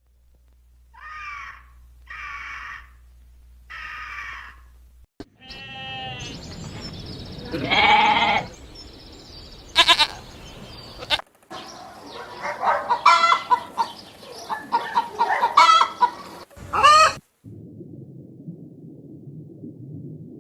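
A run of separate animal call recordings, one after another: three short calls about a second apart, then a longer, stronger call, then a burst of many quick calls, and finally a low steady rumble.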